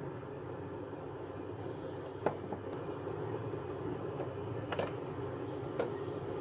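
Steady low fan-like hum, with a few light clicks as a plastic colander bowl of rehydrated dried daikon strips is tipped against the frying pan.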